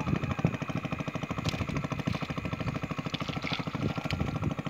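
A small engine running steadily at idle-like speed, its firing a fast, even low pulse.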